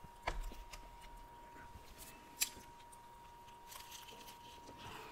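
Flaky pastry crust of a McDonald's apple pie crackling as it is broken apart and bitten, with a few sharp crunches, the loudest about halfway in, and quieter crackly bite and chewing sounds near the end.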